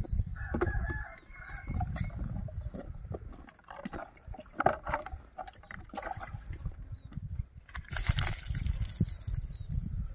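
Chickens clucking and a rooster crowing, with water scooped from a bucket and poured over a cow from a plastic dipper, a splash about eight seconds in.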